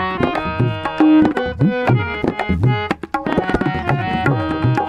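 Tabla and harmonium playing an instrumental break between sung lines. Steady harmonium chords are held under quick tabla strokes, and the low drum's strokes bend up and down in pitch.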